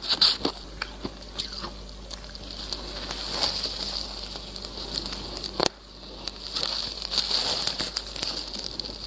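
Mouthful of powdery freezer frost being chewed close to the microphone: a fine, steady crackling crunch, with a crisp bite at the start and one sharp crack about five and a half seconds in.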